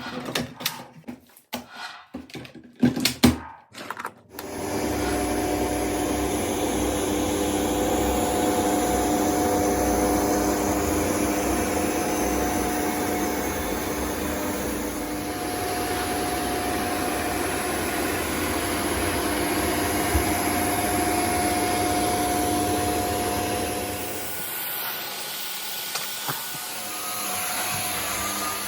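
A few knocks and clicks, then a Shark NZ801UKTSB upright anti-hair-wrap vacuum cleaner starts and runs steadily with a whining hum. Near the end it gets quieter.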